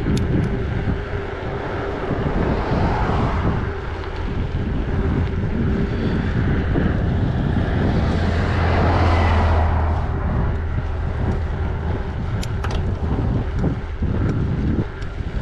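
Wind buffeting the microphone of a moving bicycle. About eight seconds in, a two-section shuttle bus passes the other way, its deep engine rumble swelling for a couple of seconds and fading.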